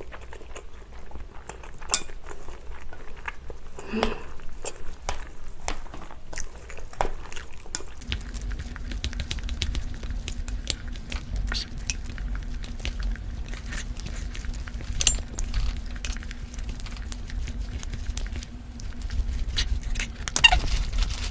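Chopsticks clicking and scraping against a glass bowl as spicy cold noodles are stirred into their sauce, with chewing in between.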